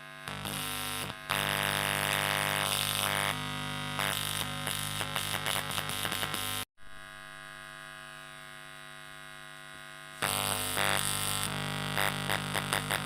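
Instrumental music with a steady low buzzing hum underneath. It cuts out abruptly for a moment about halfway through, then comes back quieter before rising again.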